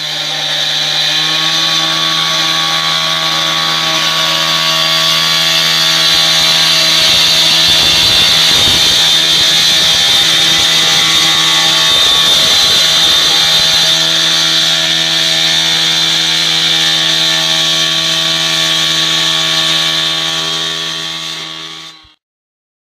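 Two-stroke gas-powered cut-off saw running at high speed, dry-cutting a bluestone slab: a steady engine whine with a loud hiss of the blade grinding through stone. It winds up in the first second and cuts off suddenly near the end.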